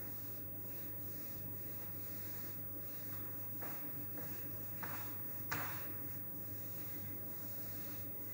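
Whiteboard eraser wiping marker writing off a whiteboard: faint rubbing strokes, with a few sharper swipes around the middle, the loudest about five and a half seconds in.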